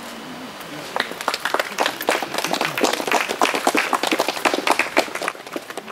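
A group of people applauding: clapping begins about a second in, thickens, and thins out near the end.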